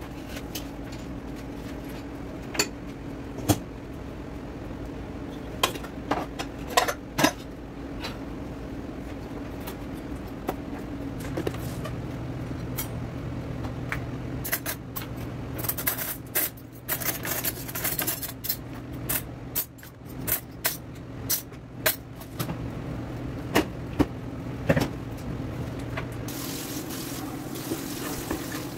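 Metal cutlery clinking and clattering as silverware is sorted from a drawer into a utensil holder, with scattered sharp clicks and knocks, densest in the middle. Near the end the kitchen tap starts running into a stainless-steel sink as a steady hiss.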